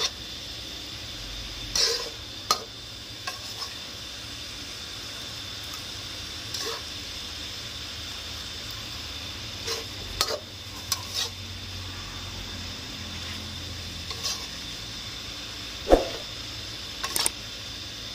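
Pork, tofu and bean sprouts sizzling in a hot wok while being stir-fried, with scattered scrapes and knocks of the spatula against the wok; the loudest knock comes near the end.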